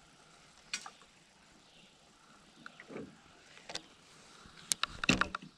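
A few sharp clicks and small knocks from a spinning rod and reel being handled in a small boat, with a quick run of clicks near the end.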